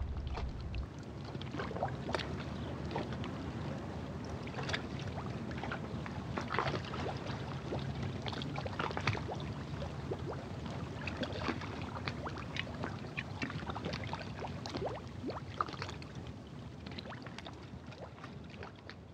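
Churning seawater splashing and sloshing, full of small sharp splashes. A low rumble drops away about a second in, and the water sound fades out near the end.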